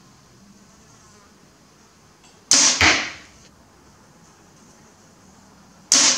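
Two compound bow shots, about two and a half seconds in and near the end: each is a sharp crack of the string on release, followed about a third of a second later by a second hit as the arrow strikes the target.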